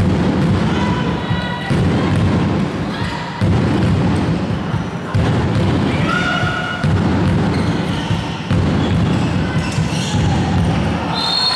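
Sounds of handball play in a sports hall: ball bounces and thuds, short sneaker squeaks on the court floor, and voices, all echoing in the large hall. A low-pitched din starts afresh about every second and a half.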